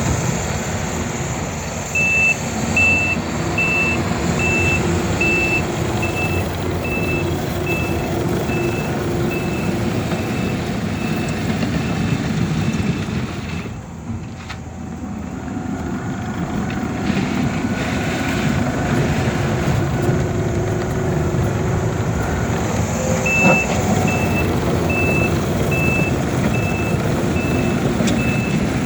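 Takeuchi TL12-R2 compact track loader running under work, its diesel engine drone steady, with the backup alarm beeping evenly about once a second while it reverses. The beeping stops for about ten seconds in the middle, when the engine briefly drops in loudness, then starts again.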